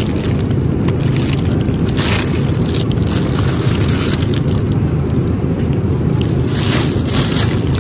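Thin plastic produce bags crinkling and rustling as they are handled and lifted, in many short crackles, over a steady low background rumble.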